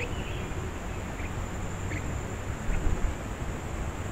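Blue-winged parrotlets (tuins) giving a few short, high chirps, over a steady high-pitched insect buzz and constant low background noise.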